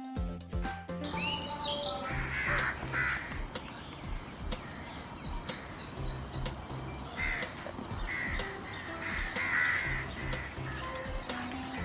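A peacock calls several times over background music.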